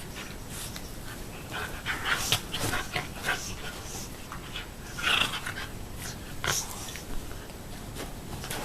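A Shiba Inu and a puppy playing together, making irregular short scuffling and breathing noises with sharp little clicks. The bursts are loudest about two seconds in and again around five seconds.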